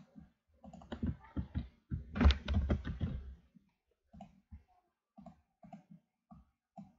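Computer keyboard typing and mouse clicks: a quick run of keystrokes from about one to three and a half seconds in, then single clicks spaced out until the end.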